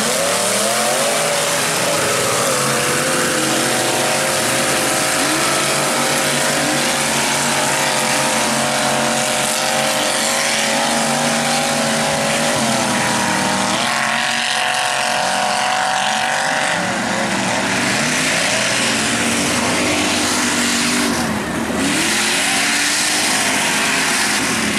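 Engines of lifted mud trucks running at high revs while racing through mud, the pitch climbing, holding and dropping as the throttle changes.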